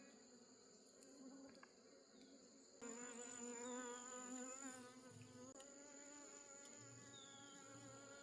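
Honey bees buzzing: a faint, wavering hum that gets louder about three seconds in.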